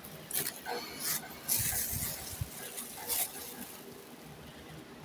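Trading cards being slid, gathered and laid down on a playmat: a series of short scraping rustles with a few soft taps, the loudest about a second and a half in.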